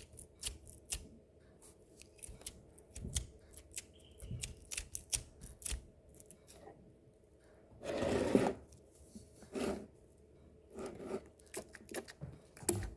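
Old, overly sticky slime being pulled and worked by hand, giving irregular small tacky clicks and pops, with two longer rubbing sounds about eight and nine and a half seconds in.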